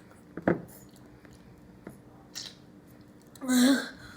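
Close-up eating sounds: chicken being bitten and chewed, with wet squishing. A sharp knock comes about half a second in, and a louder wet burst with a short hum near the end.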